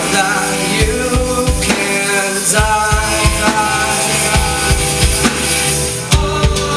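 A rock band playing live: electric bass and drum kit, with a man singing the lead vocal. Near the end the bright high shimmer drops away.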